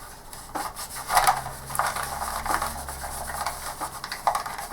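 Antibacterial wipe being handled and rubbed over a plastic computer mouse: irregular rustling and rubbing strokes.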